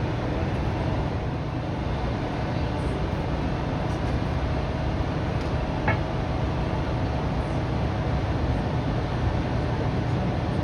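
Mobile crane's diesel engine running at a steady, constant speed during a slow lift, a low even rumble. A single sharp click about six seconds in.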